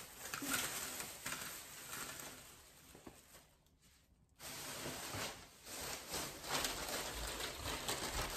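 Thin plastic shopping bag rustling and crinkling as it is handled, with a short break to near silence about halfway through.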